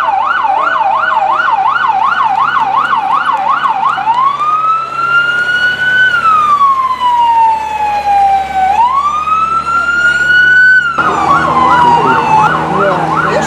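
Emergency vehicle siren cycling through its modes: a fast yelp of about three warbles a second, then a slow wail rising and falling twice, then back to the yelp near the end. A lower steady drone joins when the yelp resumes.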